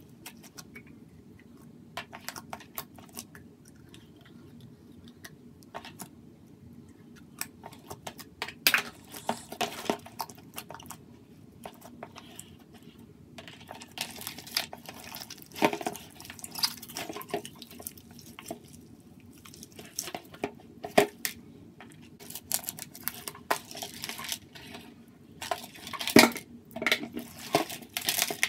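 Hands kneading and squeezing a large lump of mixed slime in a plastic bowl: irregular sticky squelches and sharp clicking pops, coming thicker in the second half.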